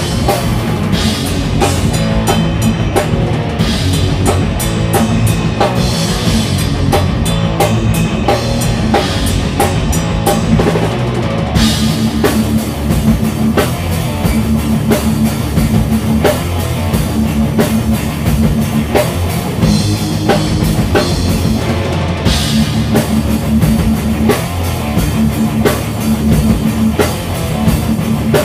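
A heavy metal band playing live: distorted electric guitars, bass and a drum kit. Stoner thrash, with a steady beat. About twelve seconds in the drumming changes to a continuous cymbal wash.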